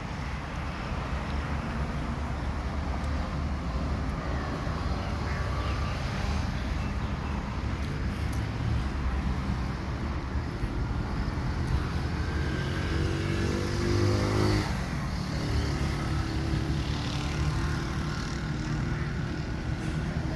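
Road traffic rumbling steadily, with one motor vehicle's engine note rising and passing about two thirds of the way through.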